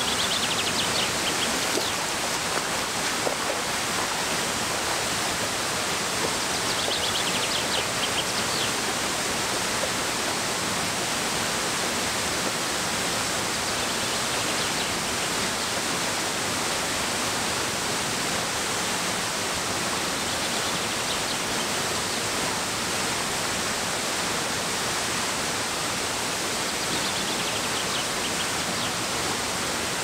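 Tall waterfall pouring into its plunge pool: a steady, even rush of falling water.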